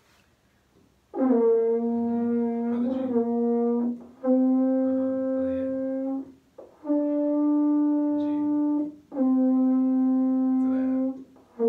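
French horn playing four long held notes of about two seconds each, separated by short gaps. The first note wavers in pitch near its end, and a fifth note begins right at the close.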